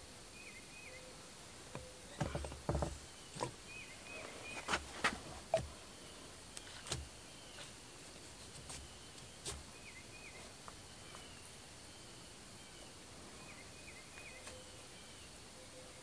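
Scattered clicks and knocks of metal parts being handled as a hydraulic control valve spool is fitted back into its bore, busiest in the first several seconds and sparser afterwards. Faint high chirps recur in groups of two or three.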